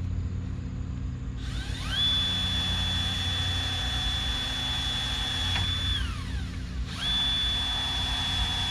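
Electric drill motor spinning up to a steady high whine, held for about four seconds and wound down, then run again at full speed about seven seconds in. A steady low hum sits underneath.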